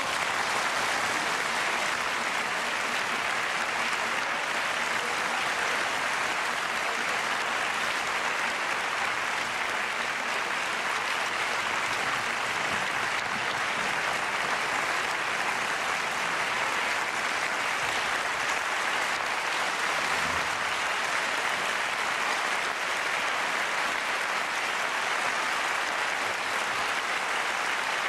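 Audience applauding: dense, even clapping at a steady level throughout.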